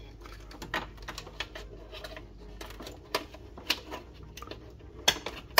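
Irregular light clicks and taps of hands handling wiring and plastic parts inside the opened housing of a Siemens EQ500 fully automatic coffee machine.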